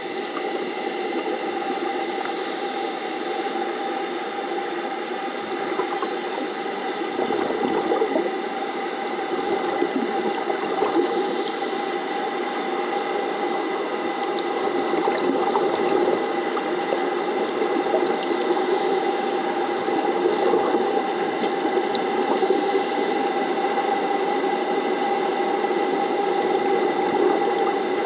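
The plant's intake pumps running, heard underwater at the intake screen bars: a steady hum holding a few constant tones over a churning water noise. A brief high hiss comes in five times, several seconds apart.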